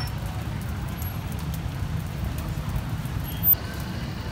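Steady low rumble of street background noise beside a charcoal fish grill, with faint light ticks and one sharp knock about three and a half seconds in.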